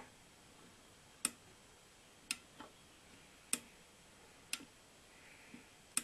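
Homemade float switch clicking as its ball-valve float arm is lifted and lowered by hand, the push rod tripping a used industrial micro-switch. About six sharp clicks, roughly one a second, some followed by a softer second click.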